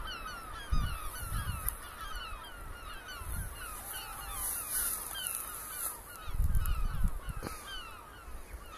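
A crowd of gulls calling at once, a steady chorus of short slurred cries overlapping throughout. Wind buffets the microphone twice, with a low rumble about a second in and again around six to seven seconds.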